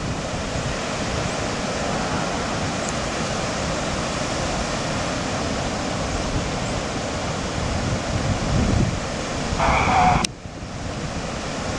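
Floodwater rushing steadily over a flooded road, with an uneven low rumble underneath. Near the end a short mid-pitched sound ends in a sharp click, and after it the rushing is quieter.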